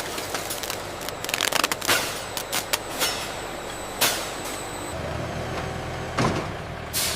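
Factory machinery running, a steady mechanical noise broken by short hissing bursts and clicks; a deeper hum sets in about five seconds in.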